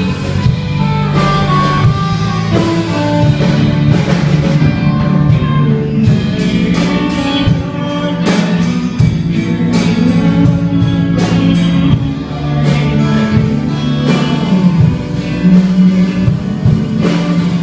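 Band music: an instrumental passage led by guitar over bass and drums, with little or no singing.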